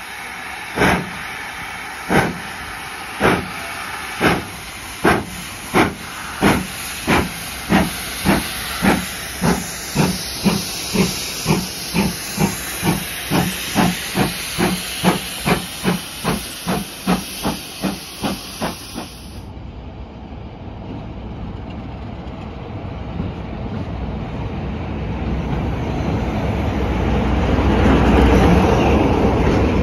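GWR Manor-class 4-6-0 steam locomotive 7822 Foxcote Manor pulling away with a train. Its exhaust beats quicken from about one a second to about three a second over a steady hiss of escaping steam, and the hiss cuts off abruptly about two-thirds through. The coaches then roll past in a rising rumble, loudest near the end.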